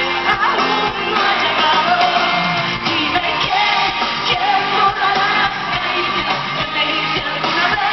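Live pop-rock concert music: a woman singing long held notes into a microphone over a full band with drums, heard from among the audience.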